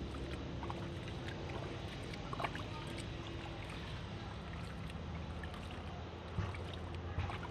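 Steady rush of flowing creek water, with a few faint ticks and taps.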